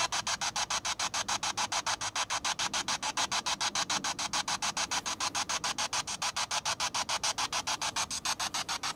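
Handheld spirit box radio sweeping through the radio band: hissing static cut into short pulses about eight times a second.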